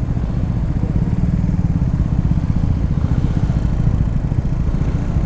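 Motorcycle engine running steadily at low revs: an even low rumble.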